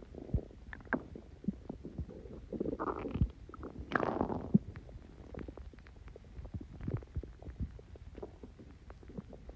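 A person's stomach gurgling and rumbling, bubbly from Coca-Cola taken with Mentos: many small pops and gurgles, with a louder, longer run of gurgling from about two and a half to four and a half seconds in.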